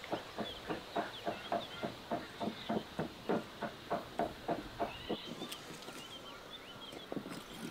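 A knife chopping steadily on a wooden board, about four strikes a second, mincing raw lamb by hand; the chopping stops about five seconds in and picks up again near the end. Faint birds chirping in the pauses.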